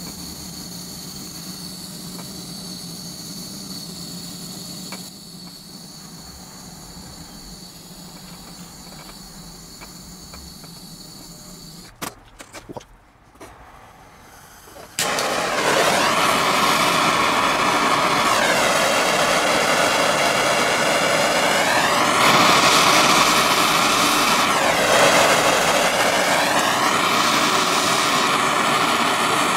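A small butane pencil torch burning with a steady hiss and a faint high whistle; it stops after about twelve seconds, a few clicks follow, and about fifteen seconds in a larger handheld butane torch burns with a loud, steady rushing hiss whose tone sweeps up and down.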